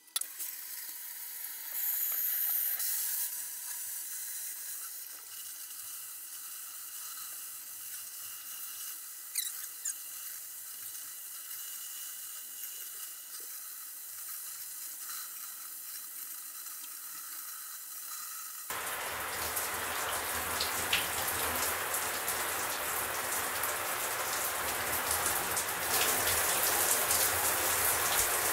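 Shower running: a steady hiss of water spraying, which turns suddenly louder and fuller about two-thirds of the way in.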